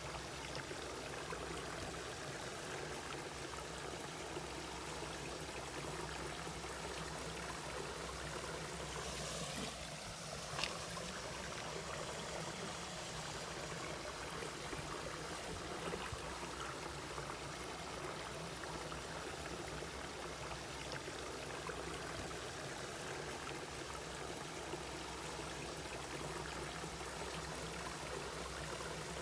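Mountain valley stream flowing, a steady rush and trickle of water over rocks, with a few faint ticks about ten and sixteen seconds in.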